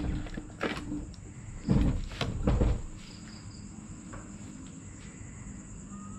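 Crickets trilling steadily in one high pitch. Within the first three seconds there are a few loud knocks and thumps.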